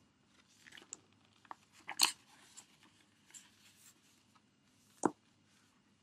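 Paper pages of a book rustling as it is handled and set aside, with scattered light crackles and two sharp taps, the loudest about two seconds in and another about five seconds in.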